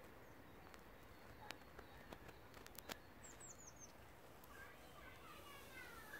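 Faint outdoor garden ambience with birds: a quick run of four high, falling chirps about three seconds in, then a faint series of falling notes from another bird near the end. A few soft clicks.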